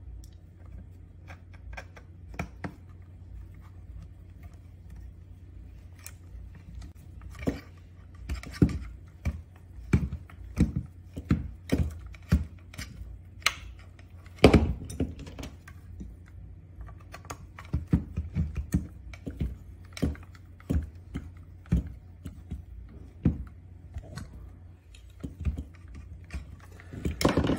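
Irregular clicks and knocks of plastic and metal scooter handlebar parts being handled and fitted, with a hex key working a securing bolt back in. One sharper knock about halfway through is the loudest, over a steady low hum.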